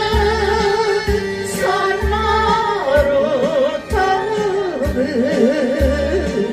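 A woman singing a Korean trot song, holding long notes with vibrato over a backing track with a steady beat.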